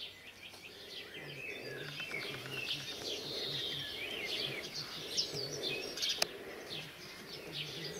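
Several birds chirping and singing at once, short overlapping calls and trills throughout, over a faint low hum, with one sharp click about six seconds in.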